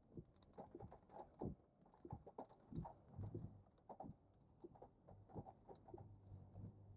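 Faint, irregular ticking of light rain drops hitting the car's roof and glass, heard from inside the cabin, over a low steady hum.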